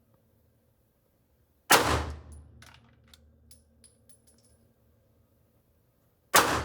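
Two single 9mm pistol shots from a Sig Sauer M17, one about two seconds in and one near the end, each with a short ringing tail. Faint clicks fall between them.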